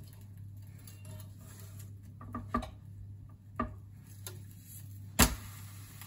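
Light clicks and taps of a metal spatula on an electric crepe maker as a crepe is lifted and turned, with one sharp, louder click about five seconds in, over a low steady hum.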